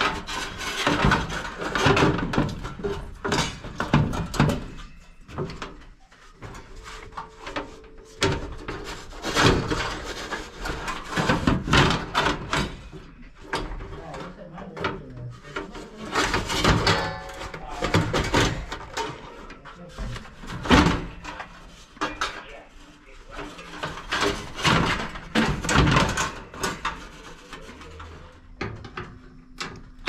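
Irregular knocks, clicks and scraping of parts and tools being handled during hands-on repair work.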